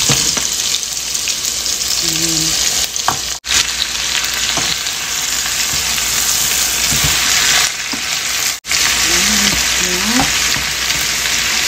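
Beef strips and vegetables sizzling in a hot nonstick wok while stirred with a spatula: a steady loud hiss with light scrapes. The sound cuts out sharply twice for a moment.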